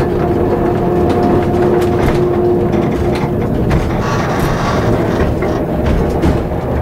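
Vintage tram running along its track, heard from inside the car: a steady low rumble of wheels on rail with scattered clicks over the joints. A steady hum runs through the first half, then fades, and a brief hiss follows a little after.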